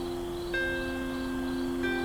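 Slow, improvised harp music: sustained, ringing notes, with a new note plucked about half a second in and another near the end.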